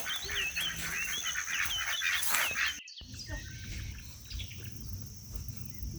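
Birds chirping rapidly, a quick run of short curved chirps that stops suddenly a little under halfway; after it only a quieter outdoor background with an occasional faint chirp.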